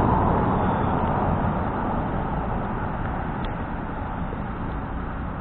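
Arrma Kraton RC truck driving off over rough ground: a steady rushing noise that slowly fades.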